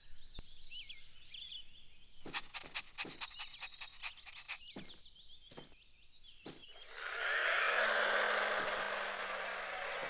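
Faint chirps and a run of light clicks. About seven seconds in, a louder steady whirring hiss starts: the electric motor of a toy remote-controlled car running, its pitch falling slightly near the end.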